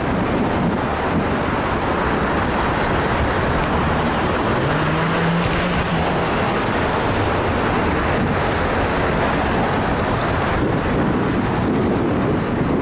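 Steady rush of wind and road noise on a bicycle-mounted action camera's microphone while riding among road traffic. A low hum rises in pitch and holds briefly about five seconds in.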